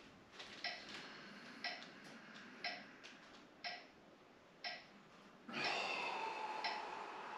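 Metronome ticking steadily, once a second. About five and a half seconds in, a person lets out a long, strained breath, with a faint hum of voice in it, that lasts about two seconds.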